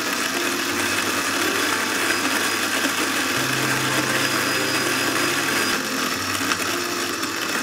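Kalita NEXT G electric burr coffee grinder running steadily, grinding a dose of coffee beans.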